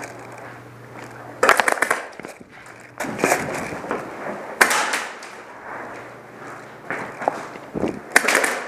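Airsoft guns firing short rapid bursts, four times, with rustling and movement between them.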